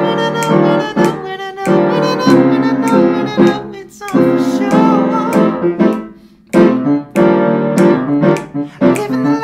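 Keyboard playing the instrumental break of a disco-style pop song, chords struck in short rhythmic stabs, with a brief break about six seconds in.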